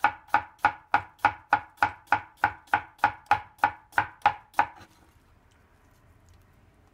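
Kitchen knife slicing a cucumber into thin rounds on a plastic cutting board: an even rhythm of knocks, about three a second, as each stroke goes through and hits the board. The strokes stop about two-thirds of the way through.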